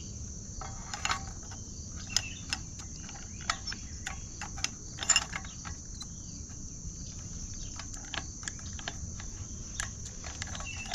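Small metal clicks and taps at irregular moments as brake pads are worked into a dirt bike's disc brake caliper, a few of them sharper and louder. A steady high-pitched background tone runs under them.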